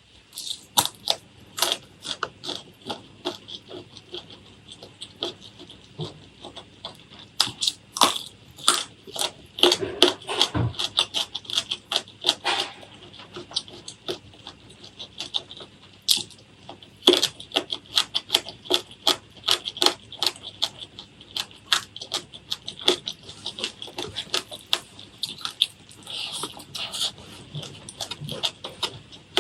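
Close-miked eating: irregular crunching and wet chewing clicks throughout, with clusters of louder crunches.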